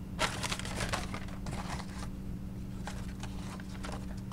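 Light clicks and scrapes of brake pads and their metal hardware clips being handled and fitted, busiest in the first two seconds, over a steady low hum.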